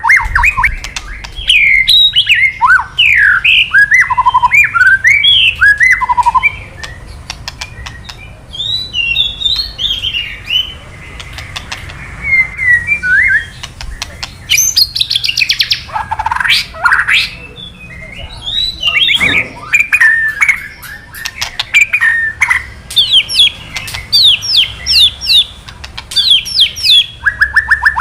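White-rumped shama (murai batu) calling loud and fast: quick slurred whistles broken up by sharp clicking 'kretekan' crackle notes, ending in a rapid, even run of ticks. This crackling is the excited, aggressive call that stirs rival male shamas to answer.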